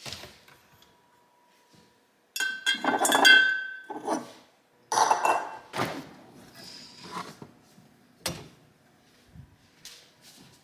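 Kitchenware being handled: a run of separate clinks and clatters of glass or ceramic, with a brief ringing on the loudest one, which comes a couple of seconds in. A sharp click follows later.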